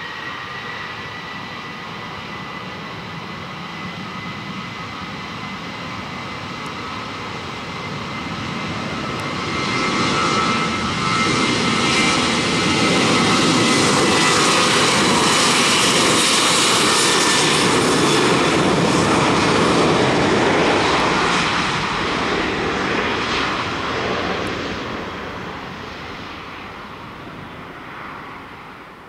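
Boeing 737 airliner's twin jet engines at takeoff power on the takeoff roll. A high fan whine at first, then the engine noise builds to its loudest as the plane passes about twelve seconds in, and fades as it moves away.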